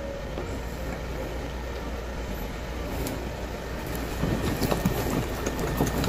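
Steady rushing background noise. From about four seconds in, a run of light clicks and clinks comes in: a spoon in a small dish, mixing potato starch with water into a slurry.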